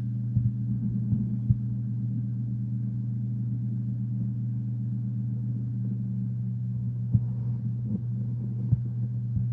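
Steady low hum with a few even tones under it, broken by a handful of short soft knocks, about three in the first two seconds and two more near the end.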